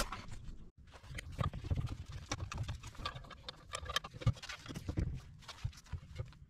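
Irregular knocks, clicks and light scrapes of a gloved hand handling the wooden pedal of a treadle hammer and its metal hinge.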